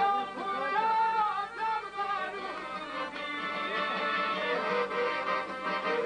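Albanian folk song playing from a vinyl record, with accordion and fiddle carrying a wavering melody.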